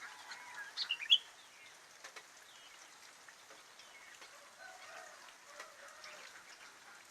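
Sooty-headed bulbul (kutilang) calling: a couple of loud, sharp, high chirps about a second in, then fainter chirps and small clicks.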